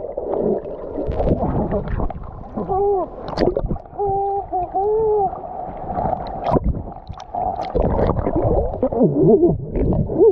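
Underwater sound heard through a waterproof action camera: muffled water sloshing and bubbling, with a few muffled wavering voice sounds about three and five seconds in.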